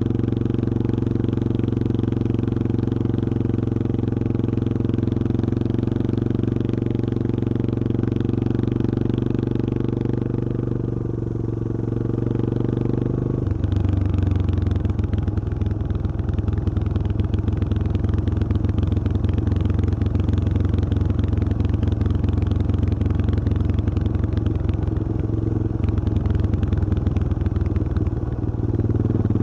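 Yamaha XT225 Serow's single-cylinder four-stroke engine running while riding, heard from on the bike. About halfway through the note drops to a slower, pulsing beat of separate firing strokes, then picks up to a steady pull again near the end.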